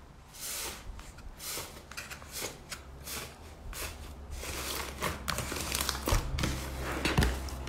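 Thick pink slime pressed, torn apart and folded by hand in a plastic bowl. It gives a quick run of short squishing crackles, a few a second, that grow busier over the second half.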